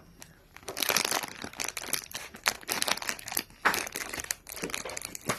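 A packet's wrapper crinkling and rustling as it is cut and pulled open, with dense, irregular crackles starting about a second in.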